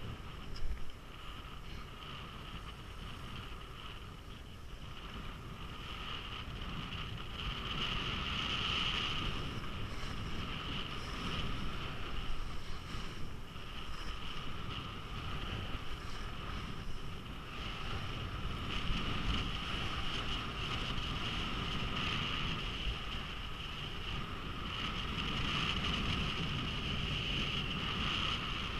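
Skis sliding and scraping over groomed snow in a steady rush, with wind on the microphone; it grows louder a few seconds in and swells and eases from then on.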